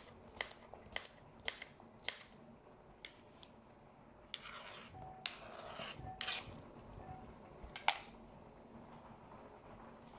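Kitchen knife chopping on a cutting board, about two sharp cuts a second, slowing and fading after about three seconds. A rustle of paper or plastic follows around five seconds in, then one sharp knock near eight seconds.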